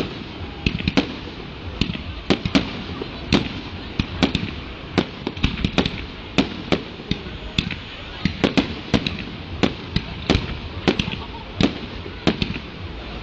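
Fireworks display: aerial shells bursting in a rapid, irregular string of sharp bangs and crackles, often several a second.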